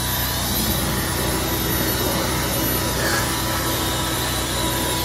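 A motor-driven machine running steadily, a constant hum under a loud even hiss, with no change in speed.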